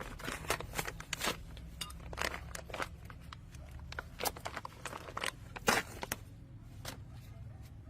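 Scattered irregular clicks and light knocks over a low, steady engine hum.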